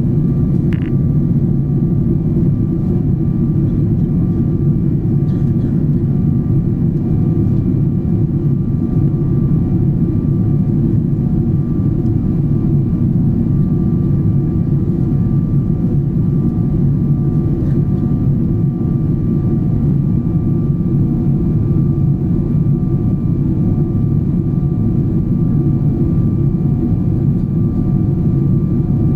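Steady cabin noise inside a jet airliner climbing after takeoff: a deep, even rumble of engines and airflow with a few faint steady whining tones above it.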